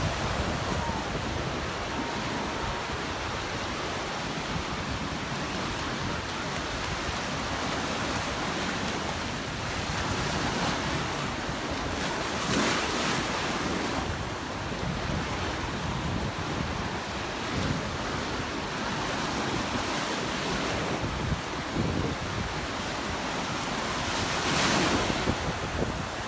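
Surf washing onto the beach, with waves breaking louder about halfway through and again near the end, and wind buffeting the microphone.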